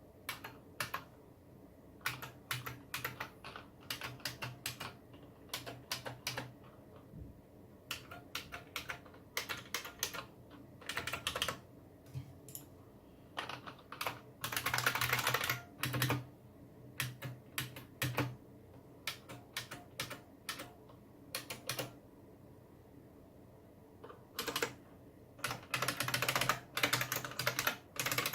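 Typing on a Unicomp Model M keyboard with buckling-spring key switches: bursts of sharp keystrokes broken by short pauses, with fast runs of keys about halfway through and again near the end.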